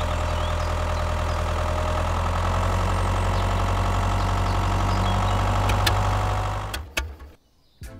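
Engine running steadily with a low hum and a faint whine above it; it cuts off about seven seconds in.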